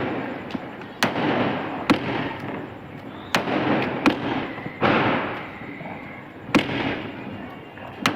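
Sky-shot firework firing shot after shot: about six sharp bangs, each followed by a fading hiss.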